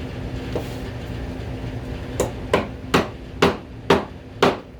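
Hand hammer striking six quick, even blows about two a second, starting about two seconds in, after one faint tap near the start. A steady low hum runs underneath.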